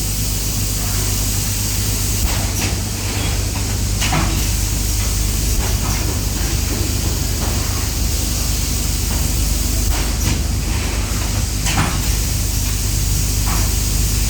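Four-cavity PET bottle blow moulding machine running: a steady hum and hiss, with repeated short blasts of compressed air hissing out as the bottles are blown and vented.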